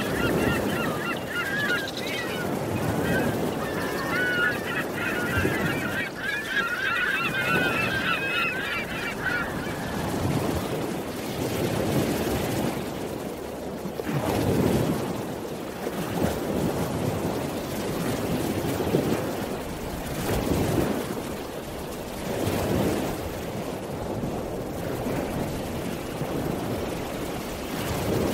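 A flock of birds calling, honking like geese, over a steady rushing noise like surf. The calls stop about ten seconds in, leaving the rushing noise swelling and fading every couple of seconds.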